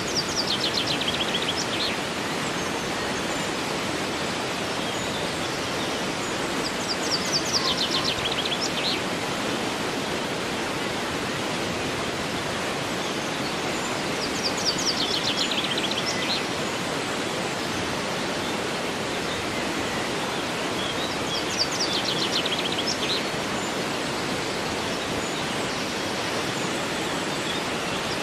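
Steady rush of a flowing river. A songbird sings a short, fast trill that falls in pitch, about every seven seconds, four times.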